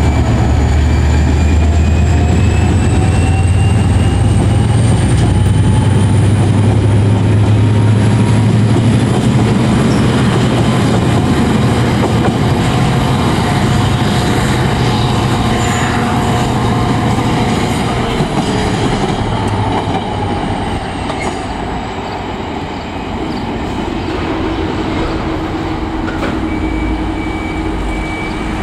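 NIR 111 Class diesel-electric locomotive with an EMD 12-cylinder two-stroke engine hauling a ballast train past. Its heavy engine rumble and high, slowly rising wheel squeal give way to the wagons rolling by, and the sound fades over the last ten seconds as the train draws away.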